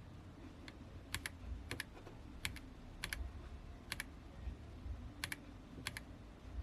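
Individual keys pressed on a Royal Kludge RK-H81 mechanical keyboard with brown switches, about eight separate clicks spaced half a second to a second apart, several heard as quick double clicks.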